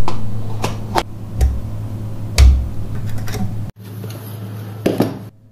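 Clicks and knocks of a mains plug being pushed into a plastic extension socket and handled, over a steady low electrical hum; the loudest knock comes about halfway through. After a sudden change the hum stops, leaving a light hiss and one more click near the end.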